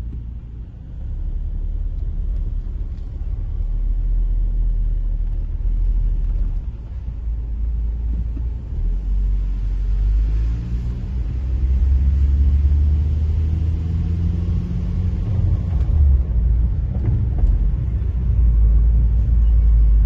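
Low rumble of a car driving along a city street, heard from inside the cabin: engine and tyre noise, growing somewhat louder a second or so in.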